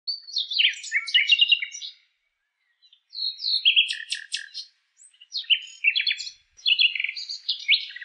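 Common nightingale singing: three phrases of rapid, varied high notes and trills, with short pauses between them.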